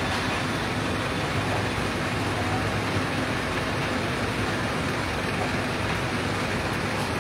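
Fire truck engine running steadily with a constant low hum, under an even wash of noise.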